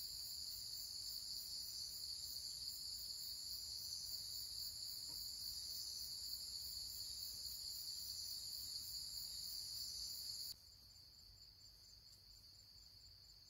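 Steady high-pitched chorus of insects trilling, with a fast, even pulsing rhythm. About ten and a half seconds in it drops abruptly to a much quieter chorus.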